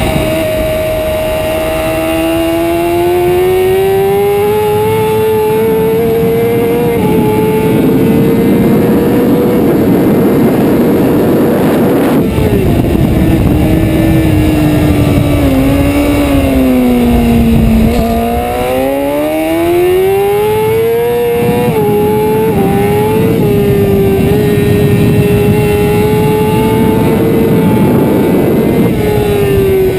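Honda sportbike engine at racing speed with wind rushing past the onboard camera. The engine note climbs, drops abruptly about twelve seconds in and sinks lower until about eighteen seconds, then climbs again in a few quick steps.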